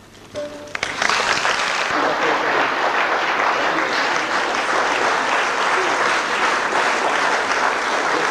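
Audience applause: a few first claps, then full, steady applause from about a second in, right after the string orchestra's piece ends.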